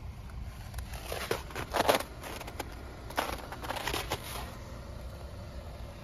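Footsteps crunching on packed snow and ice, in two short bursts of crunches about a second and about three seconds in, over a steady low rumble.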